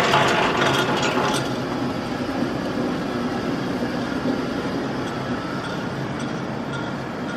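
Shop machine tool running steadily with a mechanical hum, with a few metallic clicks and a louder rush that dies away about a second and a half in.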